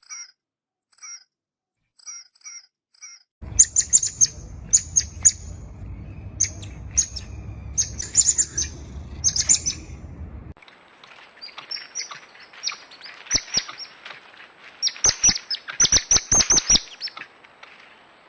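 Coati giving series of short, very high-pitched chirps. They come first singly with silence between, then in quicker runs over a low rumble, and then over a faint hiss.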